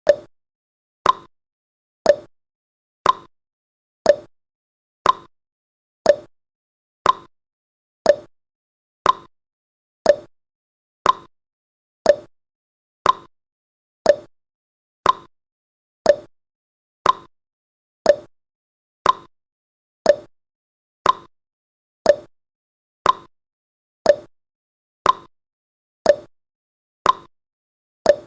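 Countdown timer's tick sound effect: one short, sharp tick every second, evenly spaced, with silence between.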